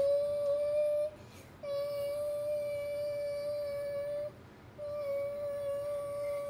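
A child humming one long, steady note in imitation of an airplane engine, held in three breaths with short breaks about a second in and again about four seconds in.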